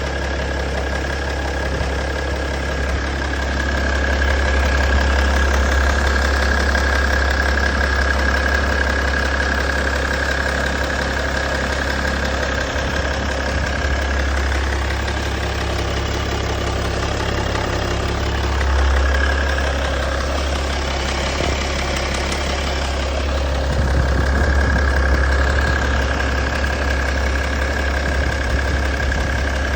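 BMW M57 straight-six turbodiesel engine running with a clatter, which the owner suspects could be a timing chain issue. A steady high whine runs alongside and fades for a few seconds twice in the middle.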